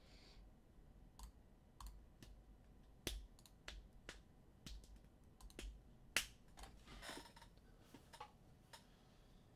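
Faint, irregular clicks of typing on a computer keyboard, scattered with gaps between them.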